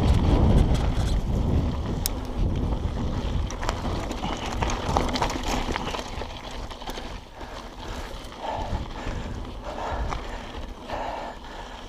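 Mountain bike rolling down a rough, stony dirt trail: a low wind-and-tyre rumble on the camera microphone with scattered rattling clicks and knocks from the bike jolting over the bumps, getting steadily quieter.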